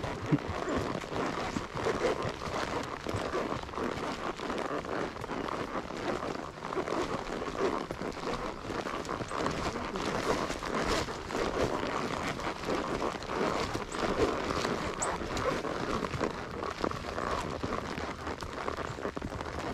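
A ridden horse on the move: a continuous irregular patter of hoofbeats and rustling.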